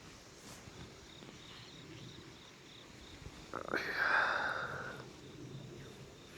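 Crickets or other insects chirping faintly in a steady, repeated pulse. About three and a half seconds in, a brief rushing noise starts sharply and fades away within about a second and a half.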